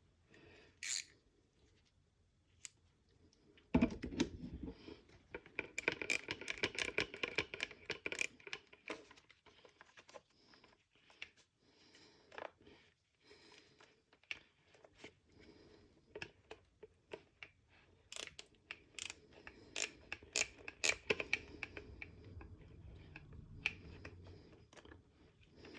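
Small handling clatter of fitting a screw into an insert with a wrench: scattered light clicks, taps and scraping of the screw and tool against the plastic receiver parts. The sounds come in irregular clusters, with a few sharper clicks a little past the middle.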